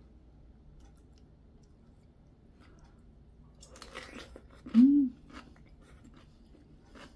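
Crisp crunching bites and chewing of cold stuffed cucumber kimchi (oi-sobagi), starting a little under four seconds in and going on to the end. About a second after the first bite comes a short, loud hum from the eater that rises and falls in pitch.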